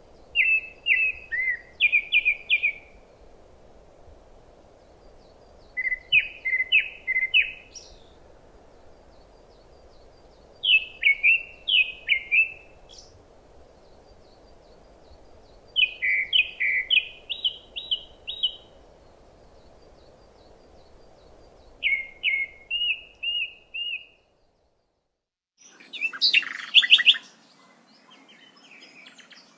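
A songbird singing short phrases of quick high notes, five phrases about five seconds apart. Near the end, after a brief dropout, comes a louder, denser burst of bird calls.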